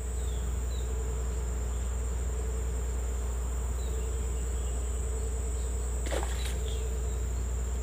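Steady high-pitched insect drone of a tropical swamp forest, with a wavering lower trill beneath it and a steady low hum. A few faint chirps and a brief rising call about six seconds in.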